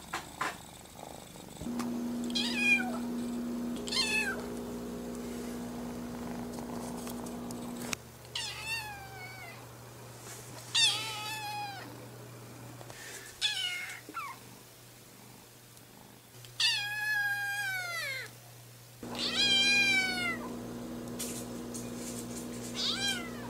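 Orange tabby kitten meowing over and over: about eight high-pitched meows, each falling in pitch and spaced a few seconds apart.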